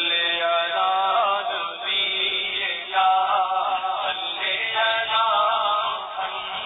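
A voice chanting in long, drawn-out melodic phrases, each held for a second or two with slow bends in pitch.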